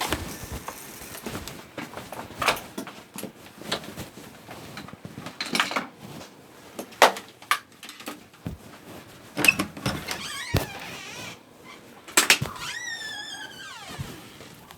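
Scattered knocks and clatter of things being handled, with a short falling squeal near the end.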